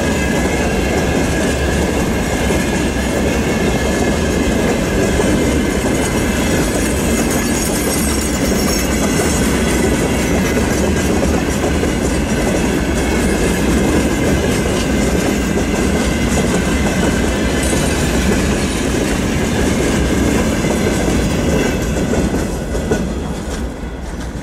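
Freight train of open gondola wagons rolling past, wheels clattering on the rails with a thin, high squeal. The last wagons pass near the end and the sound drops away.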